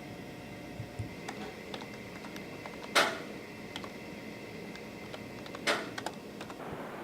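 Steady room hum with scattered light clicks and taps, and two sharp knocks, about three and five and a half seconds in.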